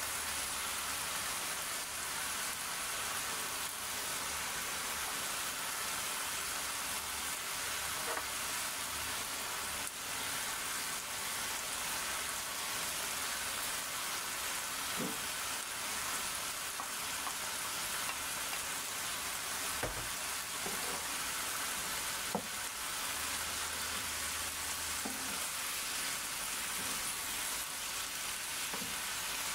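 Shredded cabbage sizzling steadily in a hot pan as it is stir-fried with a wooden spatula, with a few faint knocks of the spatula against the pan.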